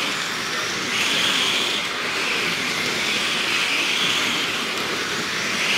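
Several slot cars racing laps, their small electric motors whining steadily, the high whine swelling and fading every couple of seconds as the cars come round past the microphone.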